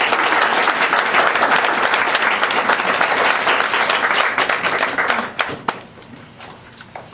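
Audience applauding, dense and loud for about five seconds, then dying away into a few last separate claps.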